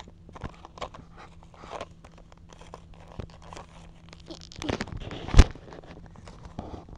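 Close handling noise: scattered rustles and light clicks as a toy and the camera are moved about, with one loud knock a little over five seconds in.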